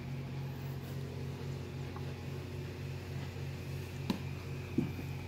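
Steady low hum of the reef aquarium's running pumps and equipment, with two light knocks near the end.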